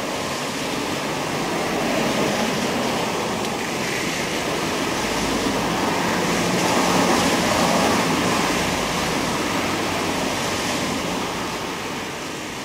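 Steady hiss of heavy rain falling, swelling a little midway and easing off towards the end.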